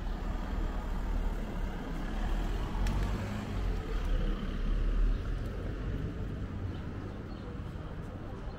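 Outdoor street ambience with a heavy low rumble that swells to its loudest about five seconds in.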